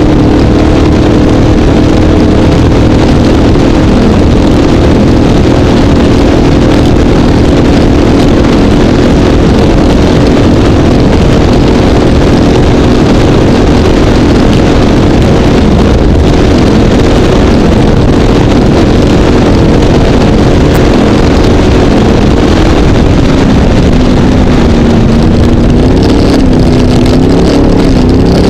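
MerCruiser 496 Mag HO 8.1-litre V8 in a Pantera 24 powerboat, running hard at steady high revs over the rush of wind and water. About three-quarters of the way through, the revs dip and waver, then climb again near the end.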